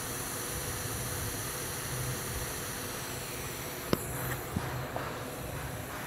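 TIG welding arc hissing steadily while laying a tack weld on a carbon steel pipe socket fitting. The hiss stops about three seconds in, followed by a sharp click and two fainter taps.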